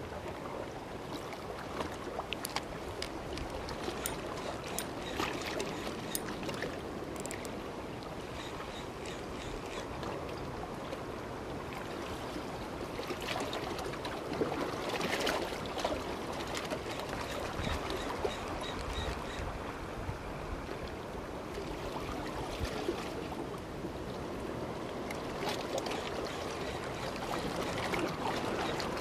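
Sea water lapping and splashing against shoreline rocks, a steady wash with many small scattered clicks.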